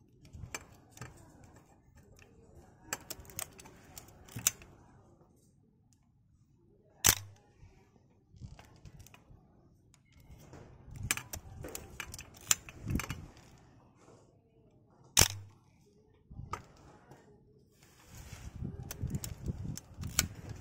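Asahi Pentax 35 mm film SLR being worked by hand with its back open: two sharp, loud shutter clicks about eight seconds apart, with clusters of softer mechanical clicking and rattling from the camera between them.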